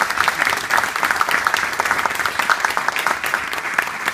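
A group of people applauding, with many hands clapping steadily.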